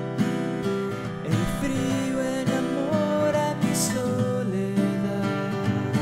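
Music: a strummed acoustic guitar, with a higher melody line that bends in pitch over it in the middle.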